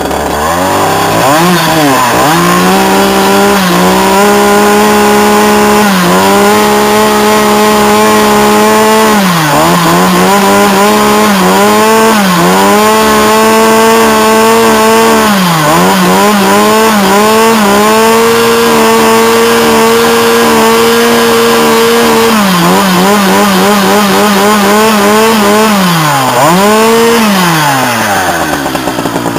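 Husqvarna 362XP two-stroke chainsaw revved up to full throttle and held there, dropping back briefly a few times. Near the end the revs waver rapidly for a few seconds, then fall away toward idle.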